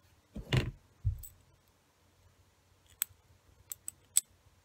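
Orthodontic jaw wire being unravelled from a small plastic demo tool with the fingers and a metal instrument. Two dull handling knocks come early, then a few sharp, light metallic clicks of wire and instrument in the last second and a half.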